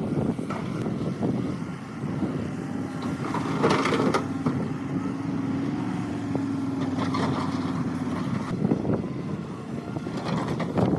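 Excavator's diesel engine running under load, with two spells of scraping and grinding as the bucket works rock, about four seconds in and again about seven seconds in.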